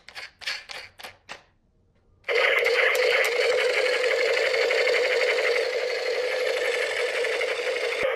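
A few short plastic clicks, then about two seconds in a battery-powered toy machine gun starts its rapid-fire effect: a loud, steady, very fast rattle.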